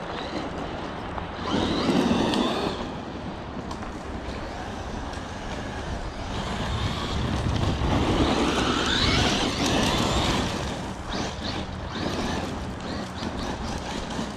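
Traxxas Maxx RC monster truck driving over a dirt trail: its electric motor whines and its tyres crunch. It swells louder briefly about two seconds in, then again for several seconds in the middle, the pitch rising as it speeds up.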